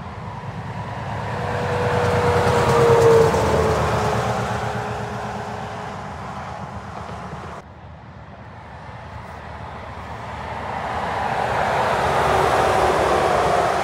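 Semi-trailer trucks passing on a motorway, one after another. Each brings a rising and falling rush of tyre and engine noise. The first peaks about three seconds in, with a whine that drops in pitch as it goes by. The sound cuts off abruptly just past halfway, then a second truck approaches and passes near the end.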